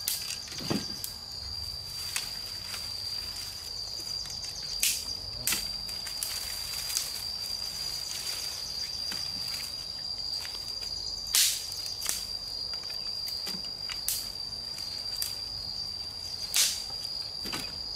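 Dry sticks and leaf litter rustling and snapping as twigs and branches are broken and stacked into an earth pit for a fire, a scatter of sharp cracks, the loudest about eleven seconds in and near the end. Behind them insects drone steadily on one high note.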